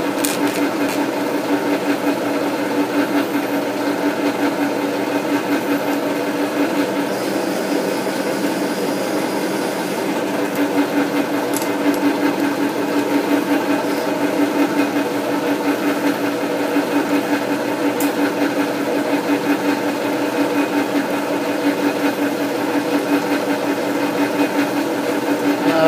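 South Bend lathe running steadily under power with its gear train whirring during single-point thread cutting of a 1-inch UNS thread.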